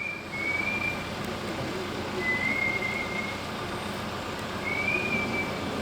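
Backhoe engine running steadily, with a thin high whistling tone that rises and fades three times over it.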